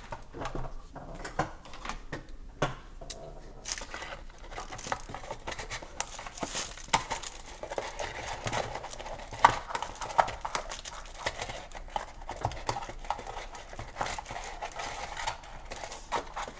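A cardboard box being handled and its twine ties cut with worn scissors: irregular rustling and scraping of cord and cardboard, with sharp snipping clicks that come thicker in the second half.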